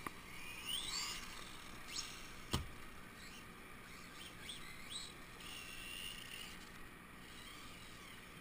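Faint, high-pitched whine of a 1/16 RC monster truck's brushless electric motor, rising and falling in quick sweeps as the throttle is worked. A single sharp knock comes about two and a half seconds in.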